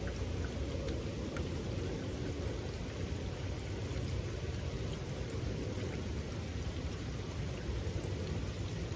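Steady rainfall: a continuous even hiss over a deep low rumble, with scattered drip ticks.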